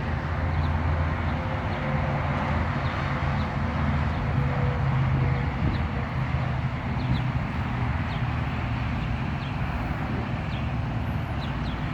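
Steady traffic noise with a low engine hum underneath, and a few faint, short bird chirps.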